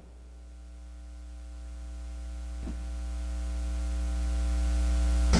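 Steady electrical mains hum and buzz, a low hum with several steady tones above it, growing steadily louder; a faint click about two and a half seconds in and another near the end.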